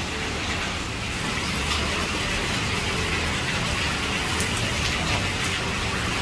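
Heavy rain falling steadily and splashing on wet paving.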